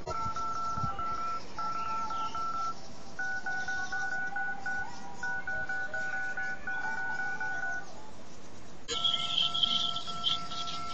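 DTMF touch-tones from a Skype dial pad: quick runs of short two-tone beeps, the keys repeated several times, then one tone held steadily near the end. They are drive commands, decoded by the robot's MT8870 DTMF chip to steer its wheel servos.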